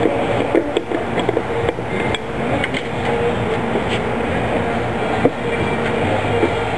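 Steady workshop din with scattered metallic clicks and knocks, the sharpest knock about five seconds in.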